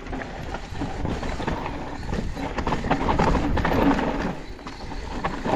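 Mountain e-bike rattling and clattering over a rough trail, with many quick knocks and a low rumble of wind on the microphone.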